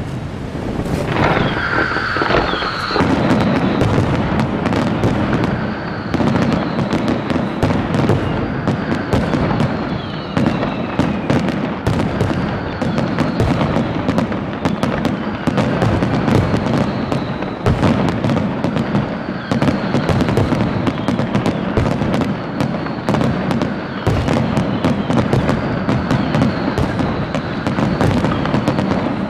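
Ground-level fireworks, fountains and a lit set piece, crackling and popping densely and without a break. A high whistle comes in about a second in and holds on faintly beneath the crackle.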